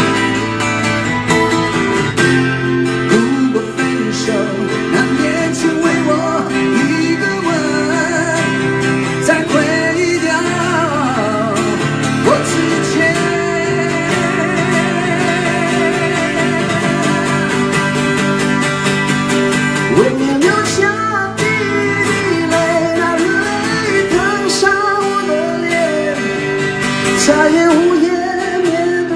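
Two acoustic guitars strummed together under two men's live singing.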